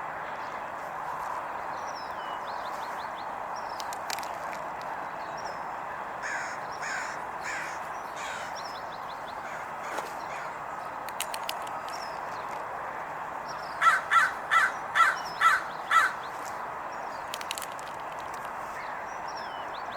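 A bird gives a run of seven harsh, evenly spaced calls about two thirds of the way through, after a fainter run of four earlier, over steady background hiss and faint high songbird chirps.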